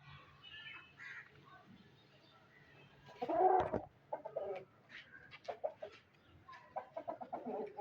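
Aseel chickens clucking in short calls, the loudest about three and a half seconds in, followed by clusters of quicker clucks.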